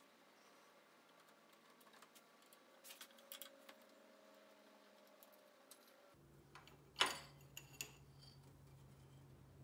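Faint, sparse metallic clicks and taps of a screwdriver working on the twin SU carburettors of a classic Mini Cooper S engine, the sharpest click coming about seven seconds in.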